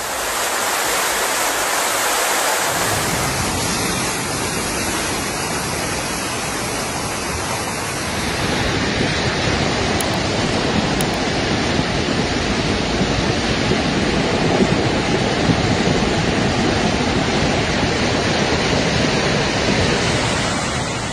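Fast-flowing floodwater rushing through a street in a loud, steady, noisy rush. A deeper rumble joins it about two and a half seconds in.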